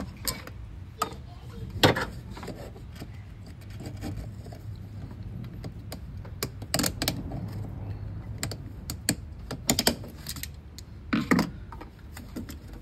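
Hand tools and metal engine parts clinking and knocking while the EGR cooler bolts are worked on. Scattered sharp clicks come a few at a time, the loudest about two seconds in, over a steady low hum.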